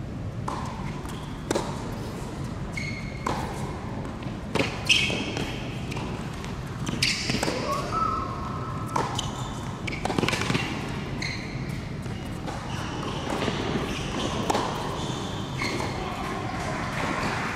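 Tennis rally on an indoor hard court: sharp racket strikes and ball bounces at irregular intervals, ringing in a large hall.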